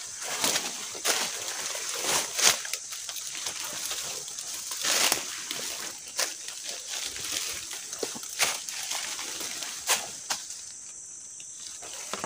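Footsteps crunching on dry leaf litter and leaves and branches brushing against the body and the camera as someone pushes through forest undergrowth, in irregular rustles.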